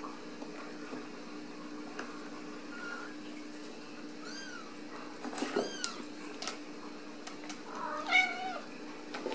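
Ragdoll kittens mewing: three short, high meows that rise and fall, about four, five and a half and eight seconds in, the last the loudest, with a few light clicks in between.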